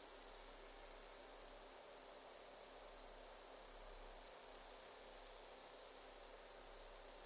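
Steady, high-pitched hiss: a band of noise concentrated near the top of hearing, unchanging throughout, played as a tinnitus masking sound.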